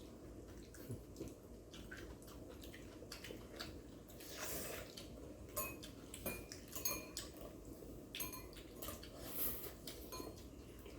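Chopsticks and spoons clicking and clinking against bowls and plates during a meal of instant black-bean noodles and fried eggs, in scattered irregular taps.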